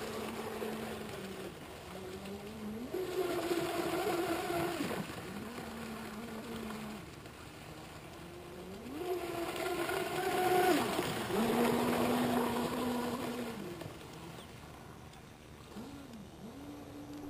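Aquacraft Motley Crew RC boat's motor whining out on the water, its pitch gliding up and dropping again every few seconds as the throttle is opened and eased through passes and turns.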